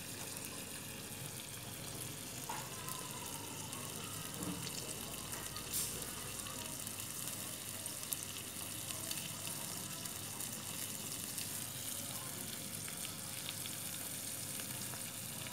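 Scallops in their half-shells, topped with scallion oil, sizzling steadily as they grill over a charcoal fire.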